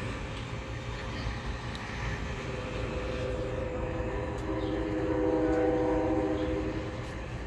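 Metra commuter train's horn, sounded from the cab car, blowing a multi-note chord that swells in about three seconds in and fades out near the end, over the steady low rumble of the train.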